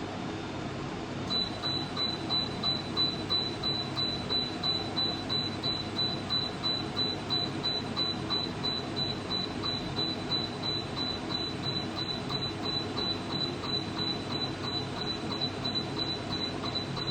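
Laser hair removal machine beeping rapidly and evenly, about three short high beeps a second, one for each laser pulse fired, starting about a second in. A steady hum from the machine runs underneath.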